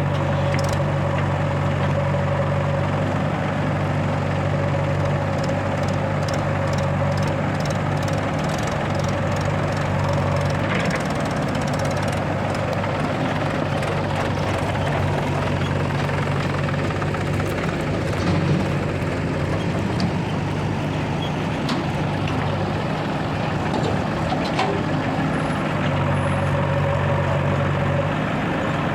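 Heavy diesel engines of earth-moving and farm machinery running, with a steady low note that shifts twice as the load changes. Scattered short metallic knocks come through now and then.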